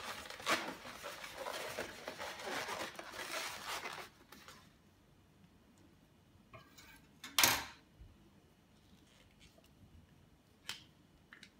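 Inflated latex twisting balloon squeaking and rubbing under the hands as it is squeezed and shaped, stopping about four seconds in. Then a single short, loud rub about halfway through, and a faint click near the end.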